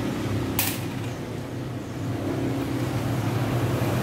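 A steady low mechanical hum, with one brief click of small steel injection-pump parts being handled about half a second in.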